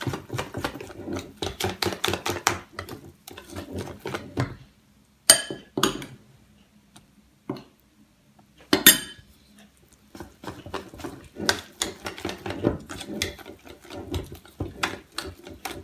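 Wire whisk beating thick pancake batter in a stainless steel bowl, the wires clicking rapidly against the metal. The whisking stops for about five seconds in the middle, broken by a few sharp knocks, then starts again.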